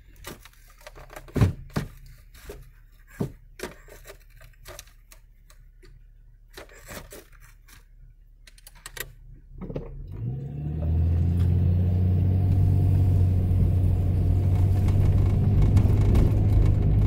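A few sharp clicks and knocks inside a 4x4 vehicle. About ten seconds in, its engine rises in pitch and then runs with a steady, loud drone.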